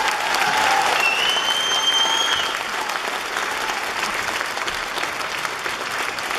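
Audience applauding, many hands clapping steadily. A high steady tone rings over the clapping for about a second and a half, starting about a second in.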